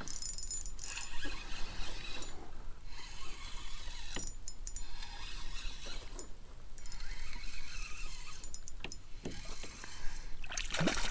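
Fishing reel being cranked to retrieve a lure, its gears turning in short spells with brief stops about every two seconds.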